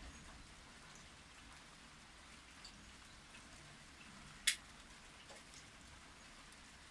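Faint light rain during a thunderstorm: a soft even hiss with scattered drop ticks. One sharp, much louder click comes about four and a half seconds in.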